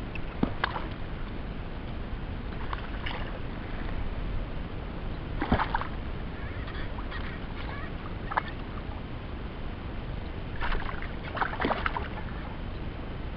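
Water sloshing and lapping around a float tube with a steady low wind rumble on the microphone, broken by short splashes every few seconds and a cluster of splashes near the end.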